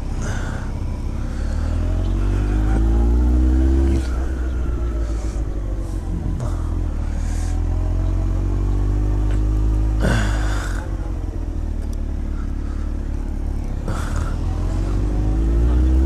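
Motorcycle engine pulling up through the gears: the pitch rises, then drops at upshifts about four and ten seconds in, and climbs again near the end, over a steady low rumble.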